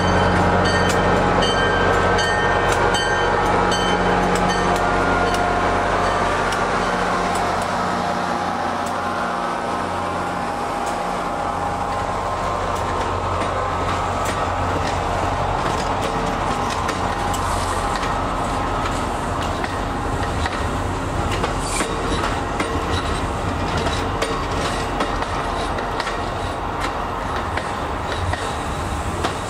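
A diesel locomotive hauling a passenger train rolls past. Its engine drone fades over the first several seconds, followed by the coaches' steady wheel rumble and clicking over the rail joints.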